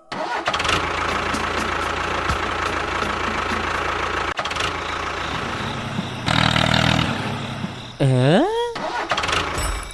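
A motor running steadily, with a louder surge about six seconds in.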